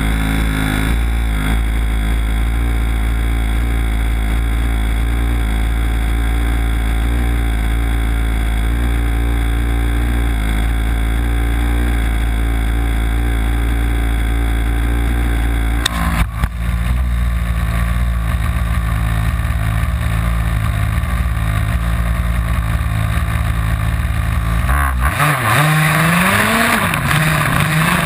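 Small two-stroke petrol engine of an HPI Baja 5B 1/5-scale RC buggy idling steadily while the car sits still, with a short knock about halfway through. Near the end the engine revs up and down as the buggy drives off, with dirt hissing under the tyres.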